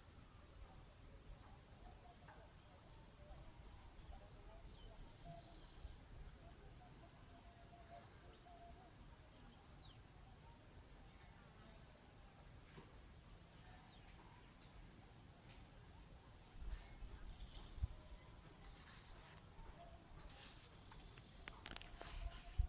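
A chorus of insects shrilling steadily at a high pitch, with a fast pulsing beat on top. A short high note sounds about five seconds in and again near the end, and a few soft knocks and clicks come in the last few seconds.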